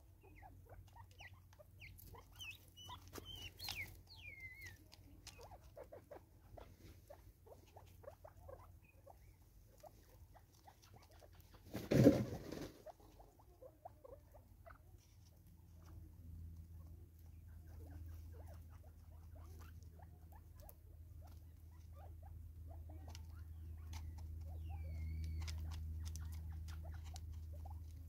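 Natal spurfowl pecking seed from a plastic bottle feeder: rapid, irregular taps and clicks of bills on plastic and seed, with one much louder knock about halfway through. A few short bird calls come in now and then, and a low hum builds up in the second half.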